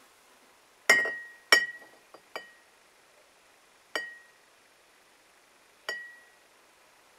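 Glass bottle clinking against a glass beer mug: about six sharp clinks, each with a short ring, the two loudest close together about a second in, then single clinks around 4 and 6 seconds.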